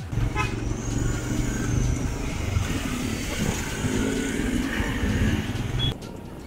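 Motorcycles riding together in traffic, recorded from one of the bikes: engines running with wind rushing on the microphone. The sound cuts off abruptly near the end.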